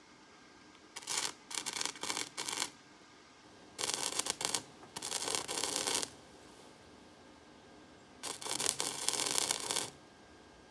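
Electric welding arc crackling on a stack of bandsaw blades in three bursts of about two seconds each, with short pauses between them.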